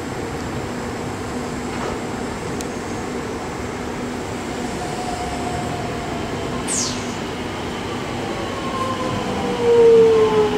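Alstom X'trapolis electric multiple unit pulling into the platform and slowing. Its motors whine in several tones that fall in pitch as it brakes, and it is loudest as the front cab passes, about ten seconds in.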